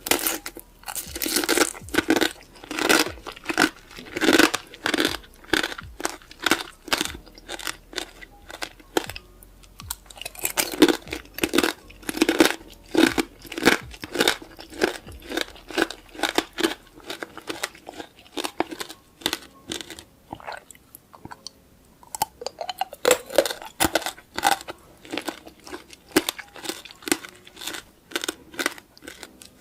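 A person chewing crisp fresh fruit: a steady run of wet crunches, two to three a second, easing briefly about ten and twenty seconds in.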